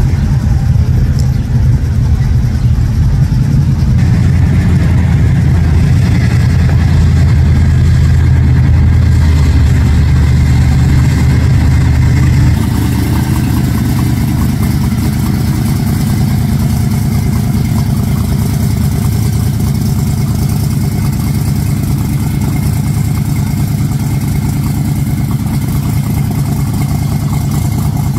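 Loud, steady low rumble of classic car engines rolling past. After a cut about halfway, the sound turns to a supercharged V8 in a 1955 Chevy Pro Street running, harsher, with more hiss.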